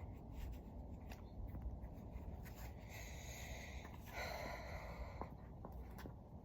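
Faint scratchy rustling and scraping over a low rumble, with a few light clicks and a longer scratchy rustle around the middle.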